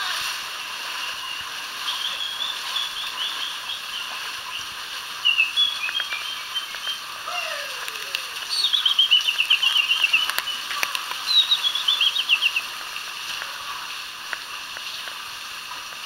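Water rushing through a rocky canyon stream, with a bird singing over it: several runs of quick trilled notes that fall in pitch, the loudest about halfway through and again about three-quarters through.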